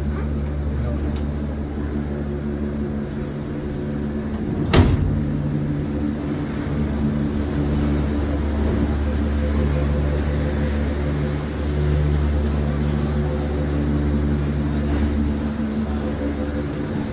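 A vehicle running with a steady low hum, and one sharp click about five seconds in.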